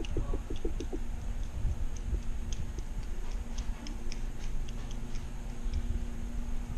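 Birds calling: a quick run of short, low pulsed calls ending about a second in, then scattered short, high chirps over a low rumble.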